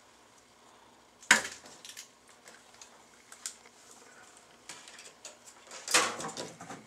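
Sharp knocks and clinks of things dropping from a leaking ceiling pipe into a bucket, one loud hit about a second in and a short clatter near the end, with fainter ticks between.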